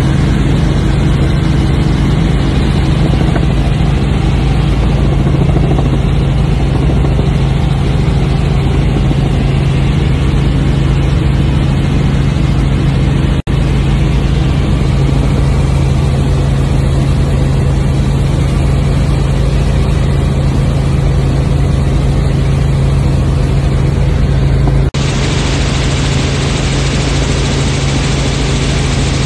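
Helicopter cabin noise in flight, recorded inside the cabin on a phone: a loud, steady drone of engine and rotor with a strong low hum. It breaks off for an instant twice, about 13 and 25 seconds in.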